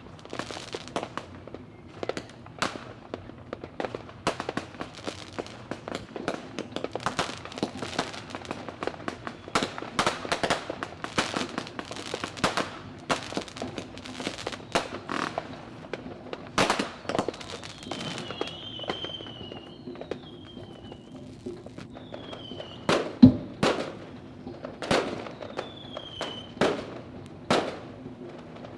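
Fireworks going off in a continuous barrage of bangs and crackling bursts. In the second half, short falling whistles sound between the bangs, and the single loudest bang comes about two-thirds of the way in.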